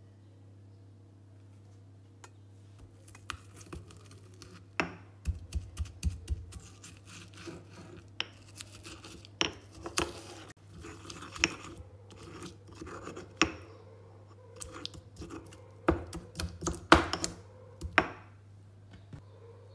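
Marble pestle crushing and grinding garlic with salt and olive oil in a marble mortar. Irregular knocks of stone on stone are mixed with wet scraping; they start a few seconds in and are loudest near the end.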